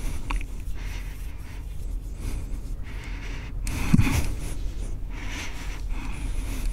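A man's footsteps and clothing rustle as he walks in and sits down on a cushioned sofa, over a steady low room hum. The loudest moment comes about four seconds in, as he lowers himself onto the seat.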